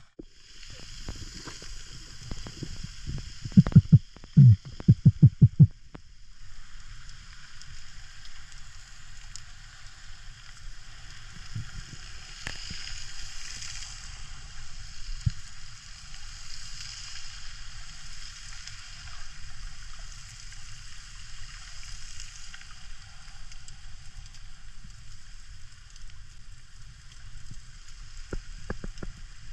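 Underwater sea ambience picked up by a diving camera: a steady hiss with a low rumble. A quick run of about ten loud low knocks comes about four to six seconds in.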